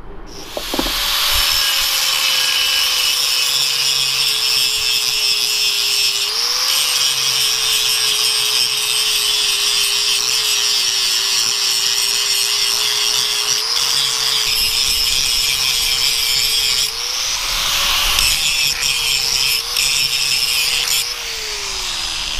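Electric angle grinder grinding a V-groove into a crack in a cast iron pump housing, ready for brazing. The motor's whine sags as the wheel is pressed into the metal and climbs back whenever it is eased off, and it runs down just before the end.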